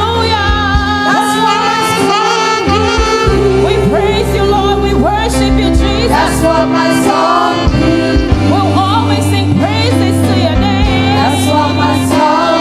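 Gospel praise team singing a worship song over live band accompaniment, with sustained bass notes and regular cymbal strokes.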